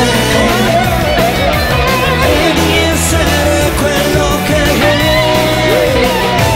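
Rock music: electric guitar over drums and bass with a steady beat.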